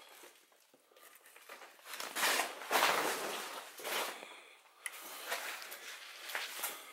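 Footsteps shuffling and scuffing over a debris-littered floor, with rustling; the loudest scuffing comes about two to three and a half seconds in.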